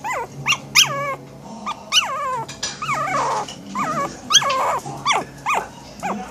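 Pet dog vocalizing in a run of short, high whining yelps, over a dozen of them, most sliding down in pitch and some ending in a wavering, grumbling tail.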